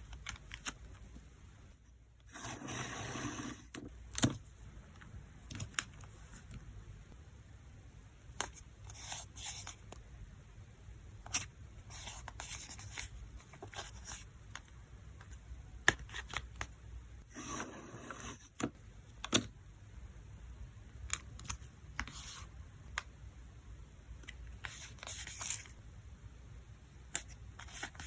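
Photocards and plastic packing materials being handled: short rustling and tearing bursts, like tape or plastic sleeves, among scattered sharp taps and clicks. The loudest sounds are single clicks, about four seconds in and twice more past the middle.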